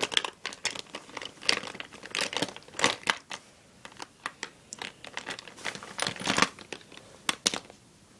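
Crinkly plastic makeup bag rustling and crackling as hands rummage through the items inside it, in irregular bursts that stop near the end.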